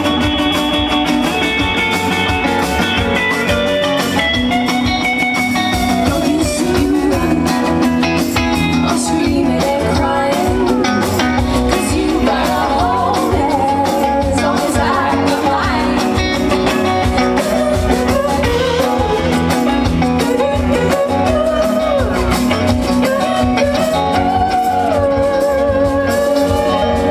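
Live folk-rock band playing, with electric guitars and banjo, and a woman singing a melody over them.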